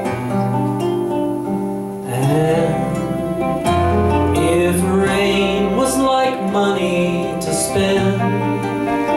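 Live acoustic band music: nylon-string classical guitar, keyboard, mandolin and bass playing together. A voice starts singing about two seconds in.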